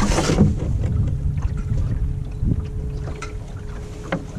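Wind buffeting the microphone and water slapping against the hull of a small dinghy moving through chop, with a louder gust in the first half-second. Under it runs a faint steady hum from the dinghy's electric outboard motor.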